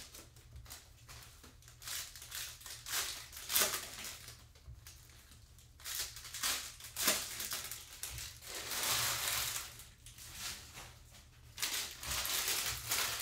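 Foil trading-card pack wrappers crinkling and tearing open, with cards being flipped through by hand, in irregular bursts of rustling.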